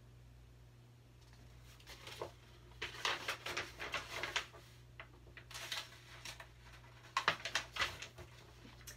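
Paper pages of a picture book being turned and handled, rustling and flapping in several short bursts, over a faint steady low hum.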